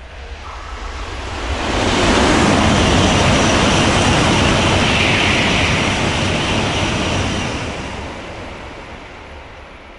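Shinkansen bullet train passing through a station at high speed without stopping: a loud rushing roar of air and wheels that swells up within about two seconds, holds for several seconds, then fades away.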